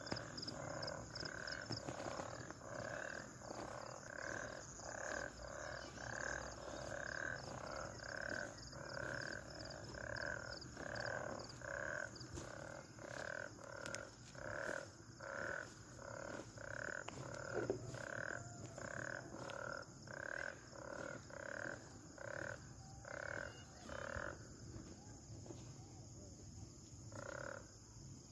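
A frog croaking over and over in a steady, even rhythm of about two croaks a second. It breaks off a few seconds before the end, then gives two more croaks.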